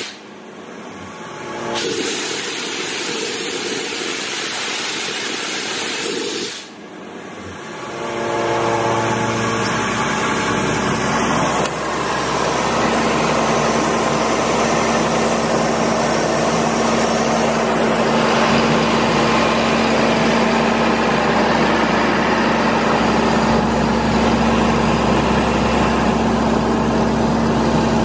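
Atlas Copco XAHS416MD portable diesel air compressor running loaded at about 2100 rpm: first a steady rush of air, then the steady hum of its Mercedes OM926LA 7.2 L six-cylinder diesel engine, which comes through clearer from about eight seconds in and louder about twelve seconds in, once the canopy door is open.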